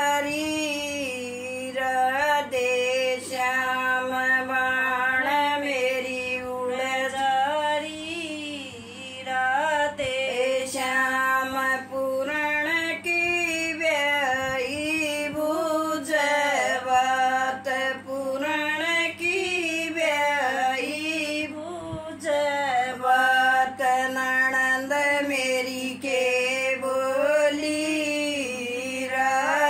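An elderly woman singing a folk song unaccompanied, a solo voice on a wavering melody with long held notes and short pauses for breath.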